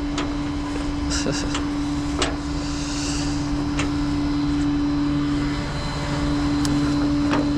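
Tow truck engine running with a steady drone, holding one pitch, and a few light clicks and taps over it.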